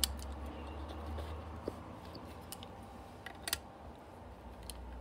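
Scattered sharp metallic clicks as pliers and the metal mounting plate of an old NuTone bathroom fan motor are handled, the loudest a quick pair about three and a half seconds in, over a low rumble from the handling.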